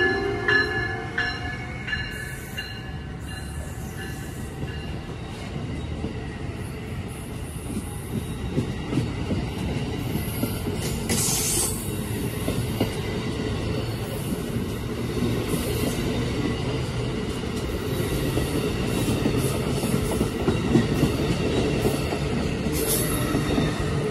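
An Amtrak passenger train rolling past close by behind an ACS-64 electric locomotive: a steady rumble of car wheels on the rails with rail clicks. There is a brief hiss about eleven seconds in.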